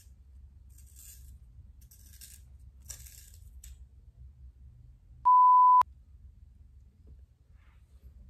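A lip liner pencil being turned in a small handheld sharpener: a few short, high scraping twists. About five seconds in comes a half-second single-pitch bleep, the loudest sound, of the kind edited in as a censor beep.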